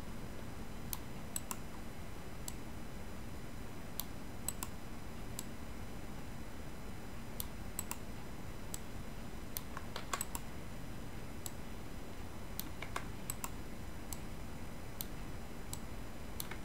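Computer mouse and keyboard clicks, scattered and irregular at roughly one a second, over a steady low hum.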